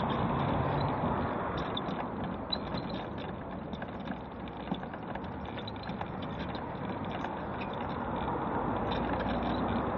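Mobility scooter rolling along a paving-slab pavement, with a few small clicks and knocks, over steady street-traffic noise that is louder near the start and the end.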